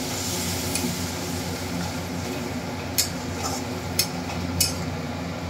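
Curry sizzling steadily in an aluminium kadai while a metal spatula stirs it, with three sharp taps of the spatula against the pan in the second half.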